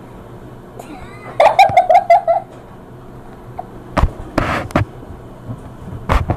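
Girls laughing: a run of quick, high-pitched giggles about a second and a half in, then shorter bursts of laughter around four seconds in and again near the end.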